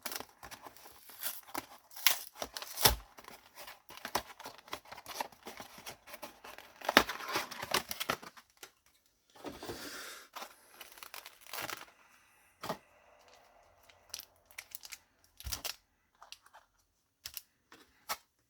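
A Yu-Gi-Oh special edition box being torn open by hand: packaging tearing and crinkling in irregular bursts, with a longer tearing pull about seven seconds in and another about nine and a half seconds in.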